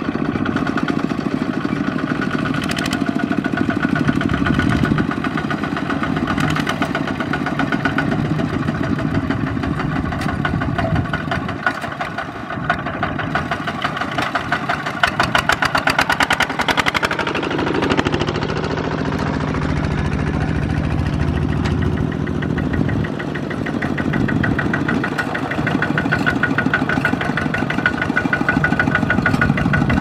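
Several single-cylinder diesel walking tractors (Kubota ZT155 type) chugging steadily as they drive in a line, with one engine's even firing beat coming up loud and close about halfway through.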